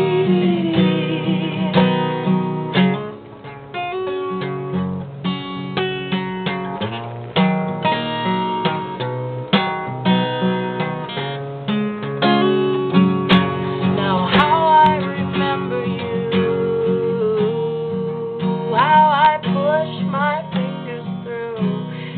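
Acoustic guitar playing an instrumental break between verses, a run of plucked and strummed chords. A sliding, wavering high melody line comes in over it twice in the second half.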